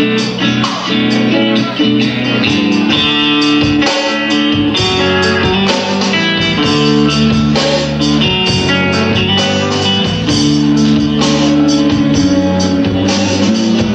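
Rock band playing live, guitars carrying a steady, dense passage with no singing.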